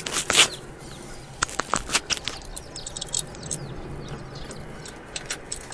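Scattered small sharp clicks and taps of hands working plastic push clips into the fender trim at a car's front wheel arch, a few in quick succession.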